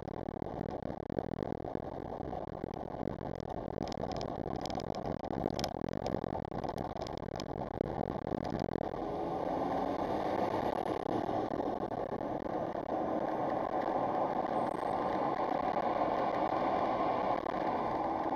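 Car driving, its engine and tyre noise heard from inside the cabin, with a few light clicks or rattles in the first half. The road noise grows louder and hissier about halfway through.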